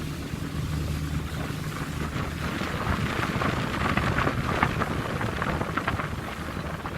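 Sightseeing cruise boat's engine running with a steady low hum under wind noise on the microphone; from about three seconds in, irregular short crackles join it.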